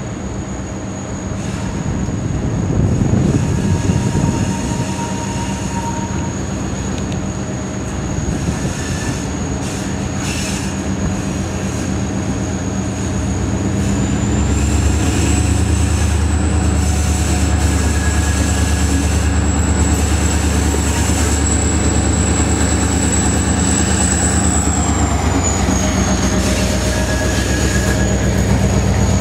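Diesel-electric freight locomotives running as they pass close beneath, the low engine rumble growing louder about halfway through. A thin high-pitched whine runs throughout, rising slightly in pitch midway and dropping back near the end.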